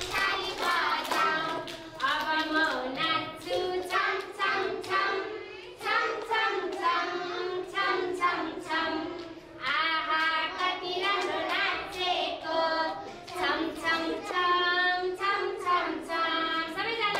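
A group of young children singing a song together and clapping their hands along with it.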